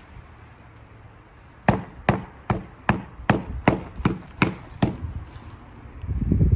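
A series of about nine sharp knocks in a steady rhythm, a little over two a second, starting about two seconds in. Near the end there is a heavier, denser low-pitched rumble.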